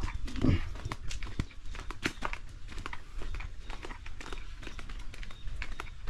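Irregular crunching and crackling clicks of footsteps on a rough path, over a steady low rumble, with a brief low hum about half a second in.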